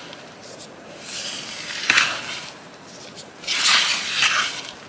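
Wooden spoon stirring glutinous rice flour batter in a plastic bowl: a few slow scraping strokes, with a sharp knock about two seconds in and the loudest stroke near the end.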